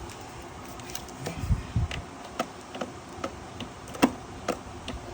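Light clicks and knocks of parts being handled on a small inverter generator, about two or three a second at uneven spacing, with a couple of dull thuds about one and a half seconds in and a sharper knock about four seconds in. The engine is not running.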